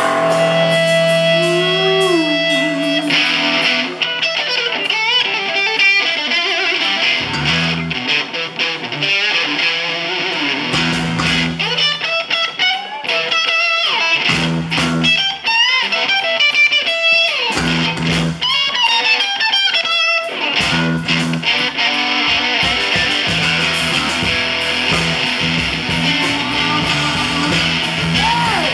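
Live rock band playing an instrumental passage with electric guitar, bass guitar and drums, a lead line of bending notes running over the band.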